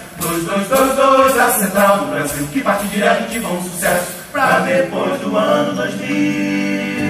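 Several male voices singing together in a stage musical, with little accompaniment. Near the end the singing settles into a held chord.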